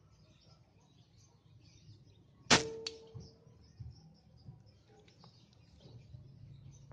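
A .177 air rifle fires once, about two and a half seconds in: a single sharp crack with a brief ringing tone, followed a moment later by a fainter click.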